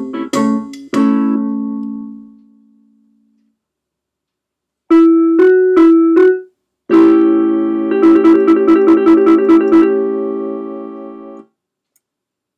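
Yamaha PortaSound PSS-470 portable keyboard playing a slow ragtime blues in a piano-like voice. A phrase of chords dies away, and after a pause of over a second come a few short chords. Then a closing chord is held with a fast trill of about five notes a second over it, and it stops sharply near the end.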